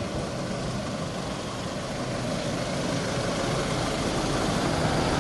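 Force Traveller police van's engine idling steadily, growing slowly louder.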